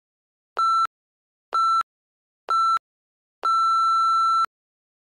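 Electronic interval-timer countdown beeps: three short beeps about a second apart, then one long beep of about a second, all at the same pitch, marking the end of a timed work interval.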